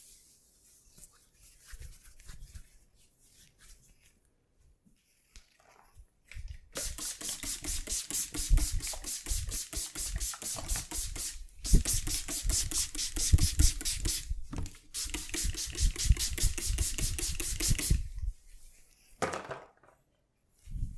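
Hands striking the body in rapid, rhythmic percussive massage strokes, several strikes a second in three runs with brief pauses. Before that, a few seconds of faint quiet rubbing.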